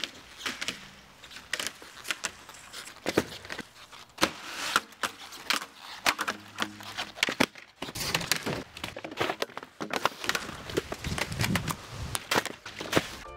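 Skis clattering and scraping on a backyard rail setup of wooden boxes, pipe rails and plastic-covered in-run: many separate sharp knocks and clacks, with a few short stretches of sliding hiss.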